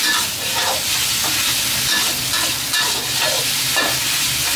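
Marinated pork slices and garlic sizzling in hot lard in a pan, stirred with a metal spatula that scrapes the pan every half second to a second.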